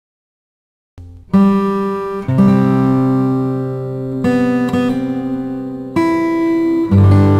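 Background music of strummed acoustic guitar chords, starting after about a second of silence.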